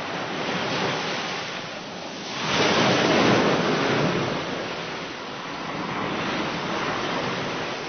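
Ocean surf: waves washing and breaking in swells that rise and ease several times, loudest about two and a half to four seconds in.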